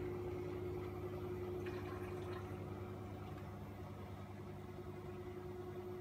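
LG F14U1JBS2 direct-drive washing machine running near the end of a Speed 14 cycle: a steady low hum with a steady mid-pitched whine, slowly growing quieter.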